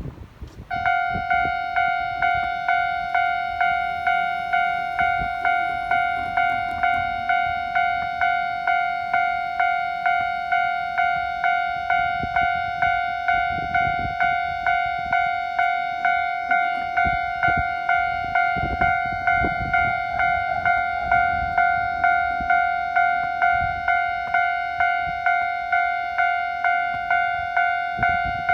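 Japanese railway level-crossing alarm starting up about a second in: an electronic crossing bell repeating a ringing tone about twice a second, the warning that a train is approaching.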